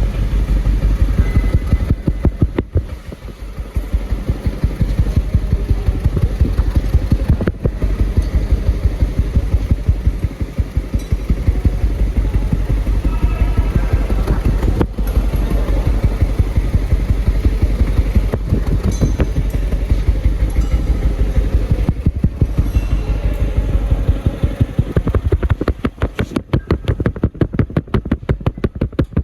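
Toyota Yaris engine running with a rapid, uneven pulsing beat, the rough running of an engine with a misfire. The pulses stand out more plainly near the end.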